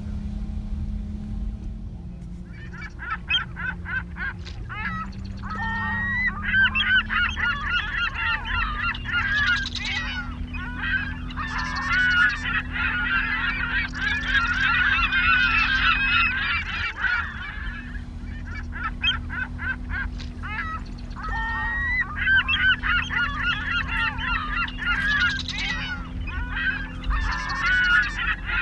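A large flock of birds calling in a dense, overlapping chorus of short wavering calls, easing off briefly a little past halfway and then resuming, over a low steady hum.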